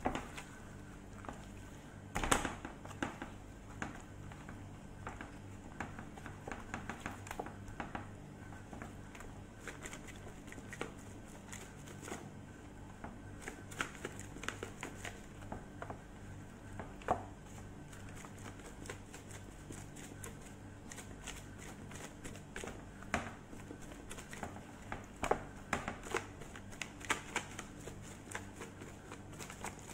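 Plastic-gloved hands rubbing seasoning into raw chickens on a metal baking tray: irregular crinkling of the glove with small wet slaps and taps, over a steady low hum.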